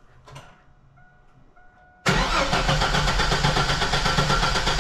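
2000 Chevy S10 ZR2's 4.3-litre V6 cranked by its starter, cutting in suddenly about two seconds in and running on without the engine catching. It won't start because the new fuel pump has no ground: the pump's ground at the back of the truck is disconnected.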